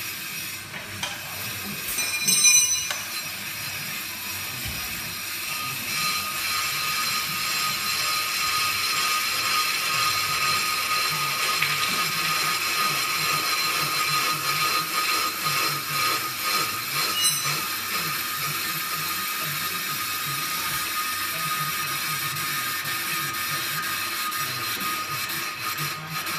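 Pro-Cut on-car brake lathe running, turning the car's hub and brake disc while its cutting tool skims the disc face to true it and cure brake judder: a steady mechanical whir with a high, even whine that grows stronger about six seconds in. A short, sharp clatter about two and a half seconds in is the loudest sound.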